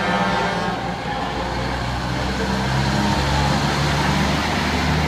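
A large truck's engine running as it passes close by, pulling a lit parade float. It is a low, steady drone that rises slightly in pitch partway through.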